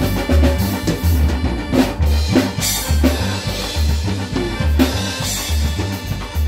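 Latin dance-band music in rehearsal: a Korg electronic keyboard plays over a steady drum beat with a bass note pulsing about once a second.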